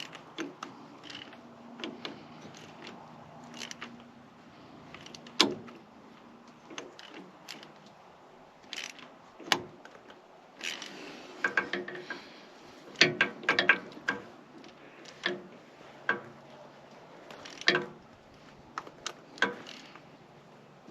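Hand ratchet with a swivel socket clicking in short, irregular bursts, with metal tool clinks, while a new oil pressure sensor switch is tightened into the engine.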